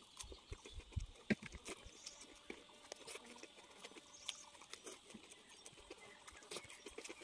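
Close-up eating sounds: chewing and lip-smacking as rice and pork are eaten by hand, a scatter of short irregular wet clicks, with the odd light tap of fingers on a plate.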